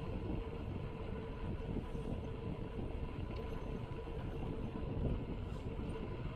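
A 26-inch mountain bike rolling along a concrete road: a steady rumble of the tyres on the concrete and the bike's vibration, with a faint steady hum.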